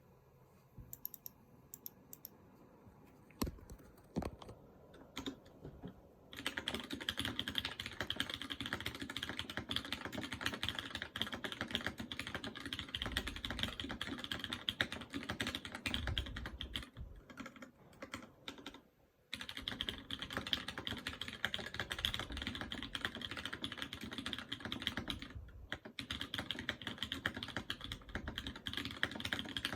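Typing on a mechanical keyboard with lightly lubed Cherry MX Red linear switches on an aluminium plate. A few separate key presses come first, then about six seconds in it turns to fast continuous typing, with short pauses along the way.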